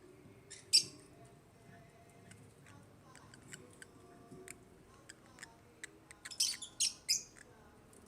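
African lovebirds giving short, high-pitched chirps: one about a second in, then a quick run of several near the end, with faint small clicks between.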